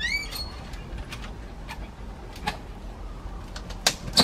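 An infant long-tailed macaque gives one short, high, rising squeak. Scattered sharp clicks follow, with two louder knocks near the end.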